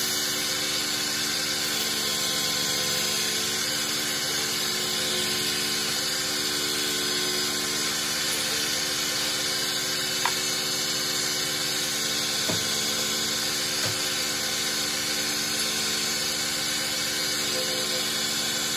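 Motor-driven wood lathe running steadily with an even hum, spinning a turned table leg as it is sanded and coloured by pressing a lacquer stick against it. Three faint ticks come around the middle.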